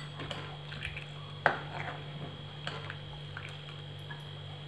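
Steel ladle stirring hot milk in a pan: soft liquid swishing with light taps and scrapes of the ladle against the pan, the sharpest about a second and a half in, over a steady low hum.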